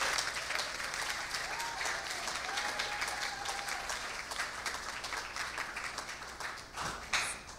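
Congregation applauding, the clapping dying away near the end.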